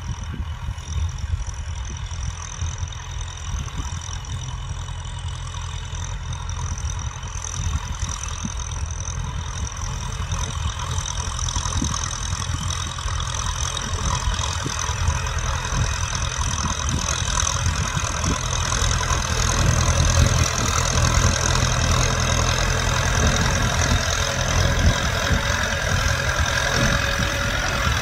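Kubota M6040 tractor's four-cylinder diesel engine running steadily under load as it pulls a disc plough through dry soil. It grows steadily louder as the tractor approaches.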